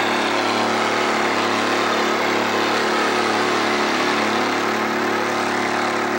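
Oliver Super 99's Detroit two-cycle three-cylinder diesel running loud and steady as the tractor drives toward and close past.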